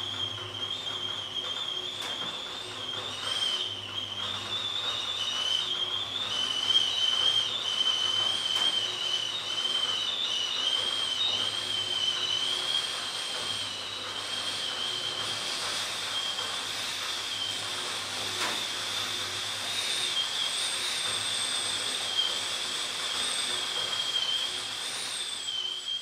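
Stainless steel stovetop kettle whistling at the boil: one high, steady whistle that wavers slightly in pitch, over a hiss of steam.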